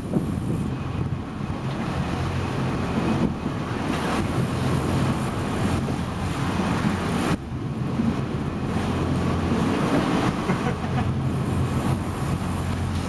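Fishing boat's engine running with a steady low drone, under wind buffeting the microphone and the wash of the sea.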